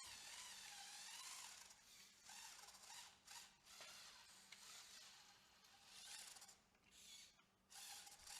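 Faint whine of the small electric motors on a remote-controlled Lego Technic truck, wavering in pitch at first, then starting and stopping in short spurts.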